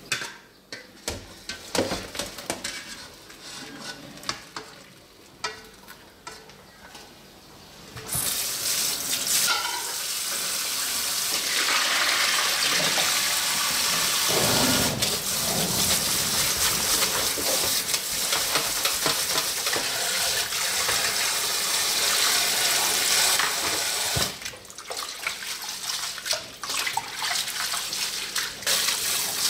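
Kitchen tap running hard onto cooked thin wheat noodles in a mesh strainer in a stainless steel sink, rinsing them cold. It starts about eight seconds in, after scattered knocks and clatter of pan and strainer. Near the end it gives way to broken splashing as hands rub the noodles in a bowl of water.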